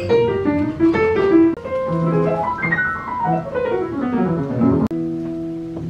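Jazz piano playing a quick flurry of notes, then a long run falling in pitch. About five seconds in there is an abrupt break, and then a held chord.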